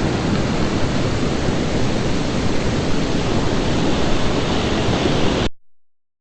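Ocean surf making a steady, even wash of noise, which cuts off abruptly near the end.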